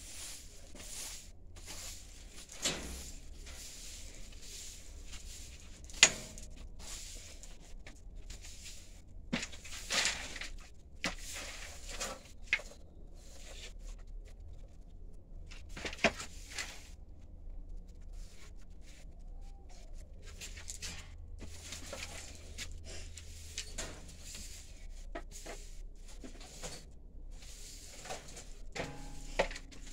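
Rabbits moving about in a wire cage: rustling of nesting hay and scattered light clicks and knocks of their feet on the wire, the sharpest twice, about six and sixteen seconds in.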